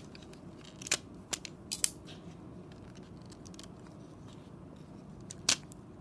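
Sharp plastic clicks of LEGO bricks as a brick-built puzzle box is handled and opened. There is a cluster of clicks about a second in and a louder single click near the end.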